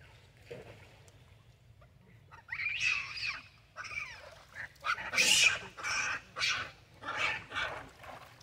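Long-tailed macaques screeching: a run of about eight short, harsh calls, starting a couple of seconds in.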